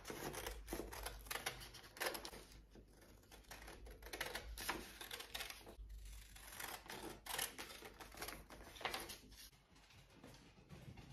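Scissors snipping through sheets of printer paper in a run of short, quick cuts; the snipping thins out and stops about nine seconds in.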